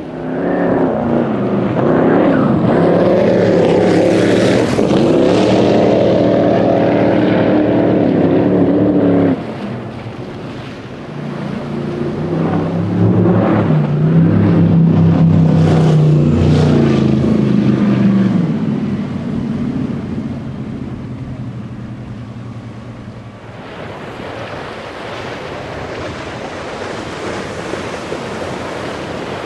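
High-performance powerboat engines running at full throttle on passes by the camera: a loud, steady engine drone that cuts off abruptly about nine seconds in, then a red MTI racing catamaran going by, its engine note rising and then falling in pitch before fading. In the last few seconds, a steady rush of water and wind as a Wajer 55S runs past throwing a wake.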